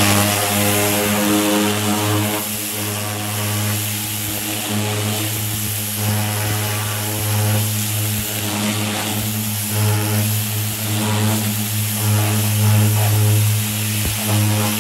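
Pressure washer jet spraying a car body, stripping chemically softened paint off the metal, with a continuous hiss of spray over the steady low hum of the washer's motor and pump.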